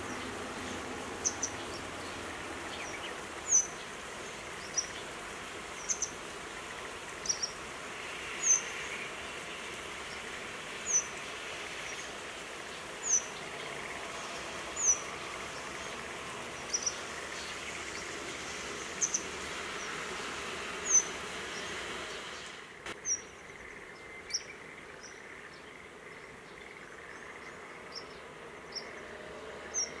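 Grey wagtail giving short, high call notes that slide downward, one every second or two, over a steady hiss of rain and road traffic. The background noise drops abruptly about three-quarters of the way through, while the calls go on.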